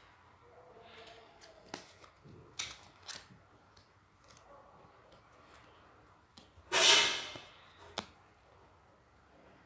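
A deck of Moroccan playing cards being gathered and handled: a few light card snaps and taps, then one louder, brief rustle of the cards about seven seconds in, and a last snap a second later.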